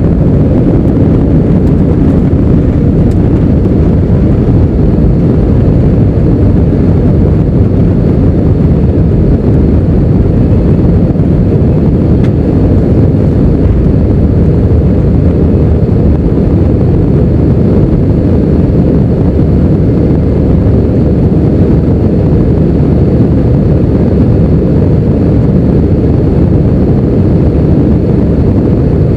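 Airbus A319 jet engines at takeoff thrust, heard from inside the passenger cabin as a loud, steady, deep noise through the takeoff and initial climb.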